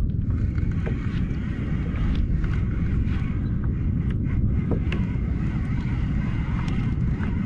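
Wind buffeting the microphone in a steady low rumble on open water, with a few faint ticks over it.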